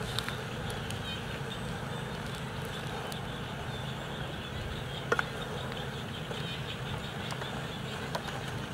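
A long wooden stick stirring food in a metal cooking pot, with a few sharp knocks of the stick against the pot, the loudest about five seconds in, over a steady outdoor hum.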